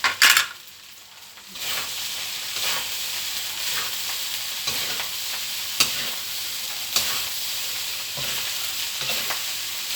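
Fried rice sizzling in a hot pan as it is stirred and tossed with a spatula, a steady hiss with an occasional sharp scrape or click of the spatula on the pan. It opens with a short loud clatter, drops away briefly, and the sizzling picks up again about a second and a half in.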